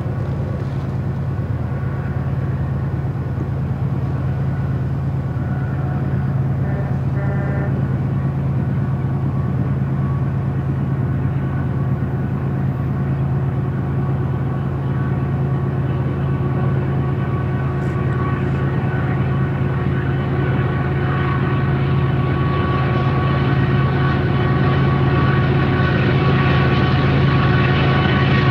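GE ET44C4 diesel-electric locomotives with GEVO-12 engines working as they pull a freight train: a steady low engine drone with a set of humming tones, growing gradually louder as the train draws closer.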